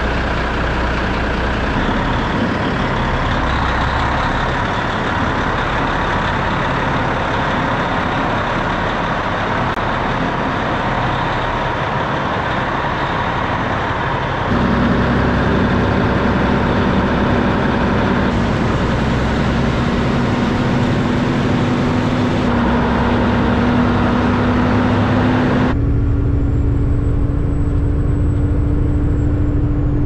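Kenworth semi truck's diesel engine running while hauling a loaded grain trailer down a gravel road, engine and road noise together. A steady engine note rises slowly in pitch through the second half, and the sound changes abruptly a couple of times.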